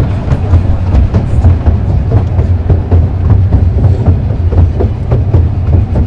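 Passenger carriage of a small-gauge garden railway running along the track: a steady rumble with frequent irregular clicks and knocks from the wheels on the rails.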